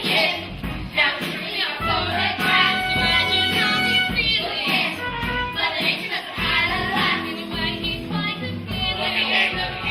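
Young voices singing a stage-musical number over instrumental accompaniment.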